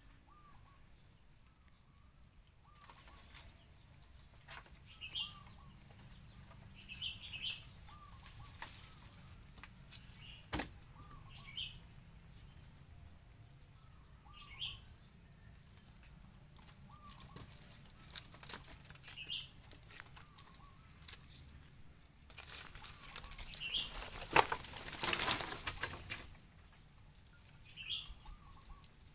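Small birds chirping, short high chirps every two to three seconds. About three-quarters through comes a louder spell of rustling that lasts a few seconds.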